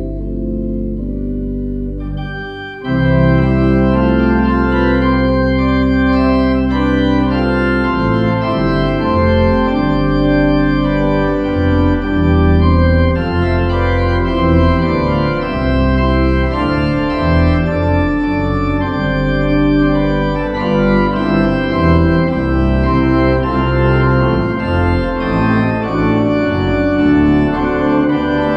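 Church organ playing sustained chords over deep pedal bass notes, with the manuals and pedalboard both in use. It becomes louder and fuller about three seconds in, and the chords change every second or two after that.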